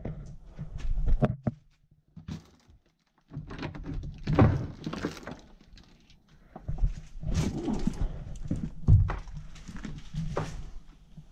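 Footsteps, scuffs and irregular thuds of someone walking over debris on a cluttered floor and pushing through a door, with rustling.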